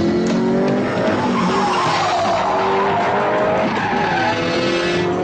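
Ford Gran Torino's tyres squealing as the car skids hard through a turn. The sustained squeal wavers up and down in pitch.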